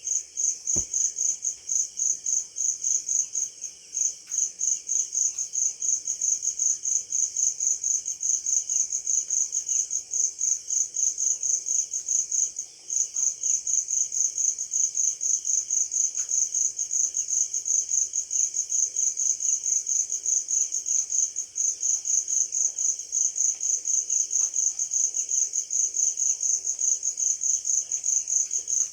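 Cricket chirping in a rapid, even rhythm of high pulses, with a brief pause about halfway through, over a fainter background of other insects.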